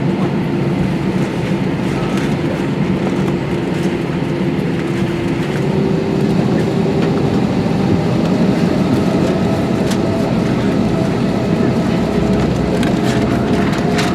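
Airbus A320 cabin noise with the jet engines running: a steady rumble with an engine hum whose pitch rises slightly about halfway through.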